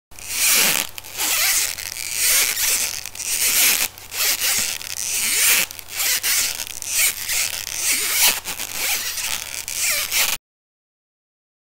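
Squeaky footsteps sound effect: a scratchy, rasping rub with small squeaks, swelling and dipping over a low hum for about ten seconds, then cutting off suddenly.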